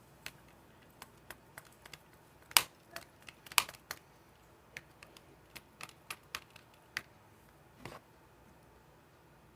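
Irregular light clicks and taps of plastic containers and utensils being handled while mixing slime, with two louder knocks about two and a half and three and a half seconds in.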